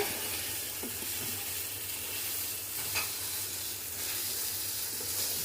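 Polao rice with whole cardamom, cinnamon and cloves sizzling steadily in hot oil in a cooking pot as it is stirred and fried, with a single light tap about three seconds in.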